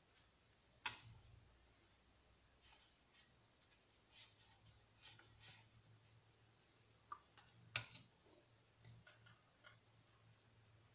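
Near silence: faint room tone with a steady low hum, broken by two small sharp clicks, about a second in and near eight seconds in, and a few soft rustles between.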